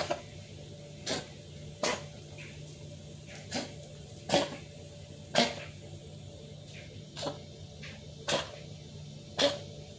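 A kitten coughing over and over: about nine short, sharp coughs, roughly one a second at an uneven pace, the loudest near the middle.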